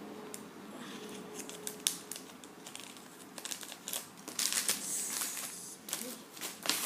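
Packaging crinkling and rustling as it is handled, with scattered crackles and a sharp click about two seconds in; the rustling grows busier from about halfway in.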